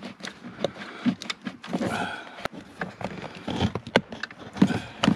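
Hands working the plastic trim panel under a Volvo S80's glove box and unplugging its courtesy-lamp connector: irregular plastic clicks and knocks with rustling between them.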